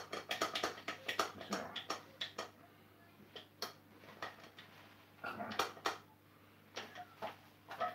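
Frying pan being handled on an electric coil stove while a pancake cooks: clusters of sharp clicks and knocks as the pan is lifted, tilted to swirl the batter and set back on the burner.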